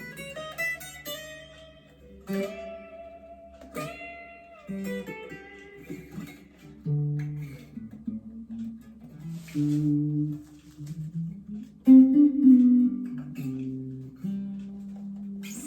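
Gear4Music LA Select Strat-type electric guitar being played: picked single notes and short melodic phrases, some notes sliding in pitch, with the loudest notes about twelve seconds in.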